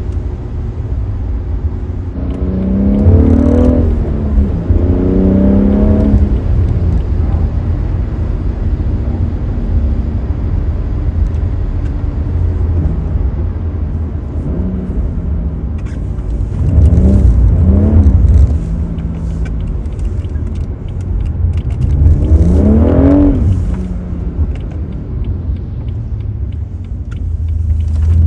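BMW M140i's turbocharged 3.0-litre straight-six revving up hard and falling back again several times, over a steady low rumble. A scatter of short sharp crackles comes in the second half.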